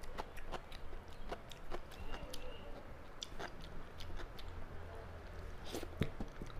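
Close-up chewing and moist mouth clicks of a person eating rice by hand, mixed with soft squishing as fingers work the rice on a brass plate. The clicks are irregular, with one sharper click about six seconds in.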